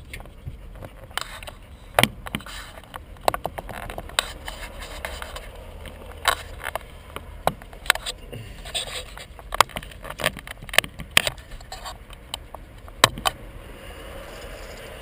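Irregular sharp clicks, knocks and scrapes of a hand handling and adjusting a mounted camera, over a low steady rumble.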